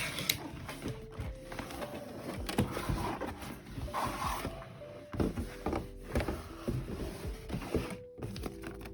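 Background music with a simple stepping melody, over scattered short clicks and knocks of parts or packaging being handled.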